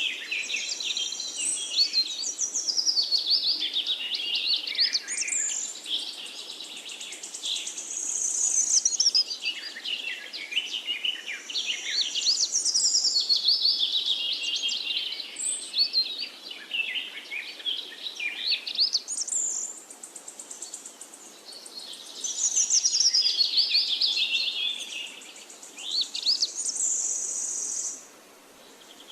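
Several forest birds singing at once: a dense mix of chirps, whistles and fast trills over a faint steady hiss, dropping away near the end.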